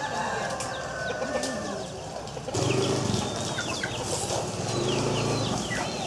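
Chickens and other birds calling, with short falling chirps. About two and a half seconds in, the sound grows louder as a steady low hum joins.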